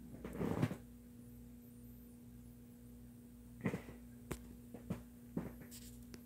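Handling noise from a phone being moved while filming: a brief rustle in the first second, then five or six sharp clicks and knocks spread over the last few seconds, over a steady electrical hum.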